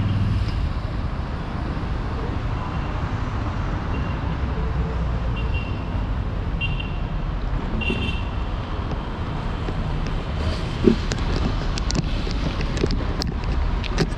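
Street traffic: a steady rumble of cars going by, with a few short high-pitched chirps midway and some sharp clicks near the end.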